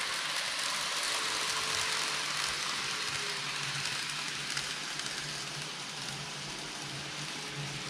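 N-gauge model trains running on the layout track: a steady rolling hiss of small metal wheels on rail, with a faint low motor hum, slowly getting quieter.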